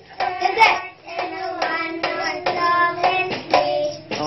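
A group of young children singing a Christmas carol together, with sharp taps beating time about twice a second.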